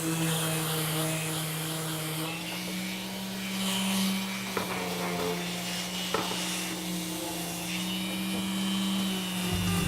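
Random orbital sander running on wood with its dust extractor vacuum drawing through it: a steady motor hum with a hiss over it, stepping slightly up in pitch about two seconds in. Two light knocks come near the middle.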